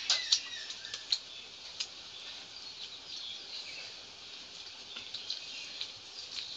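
Two people eating rice and curry by hand: wet mouth smacks and chewing clicks, with fingers squishing food against steel plates. There are many short sharp clicks, loudest in the first second, over a faint high chirping.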